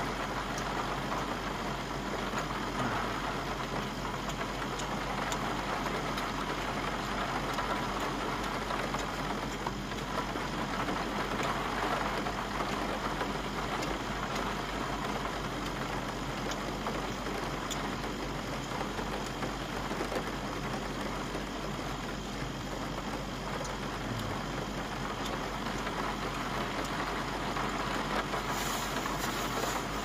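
Steady rain falling on a small camper van, heard from inside, over the constant hum of the van's air conditioner.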